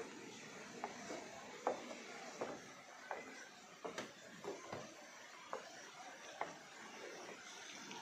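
Faint steady rush of running water, with irregular soft knocks and scuffs of walking, about one or two a second.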